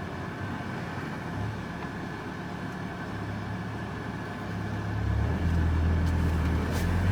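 Vehicle engine and road noise heard from inside the cab, a steady low rumble that grows louder from about five seconds in.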